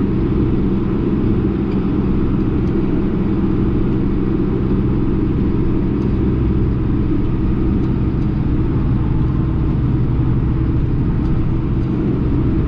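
Case 1090 tractor's diesel engine running steadily under load while pulling a field sprayer, heard from inside the cab as an even, low drone.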